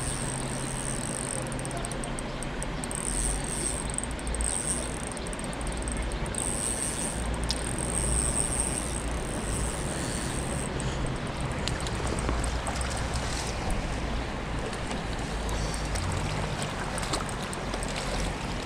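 Steady rush of flowing river water, with a high hiss that pulses on and off until about halfway through.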